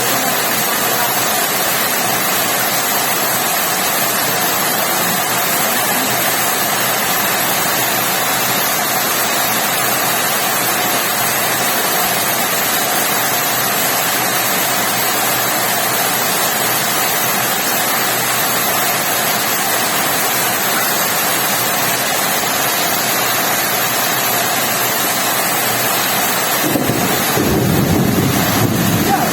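Steady heavy rain falling, a dense even hiss. Near the end a low rumble joins it for a couple of seconds.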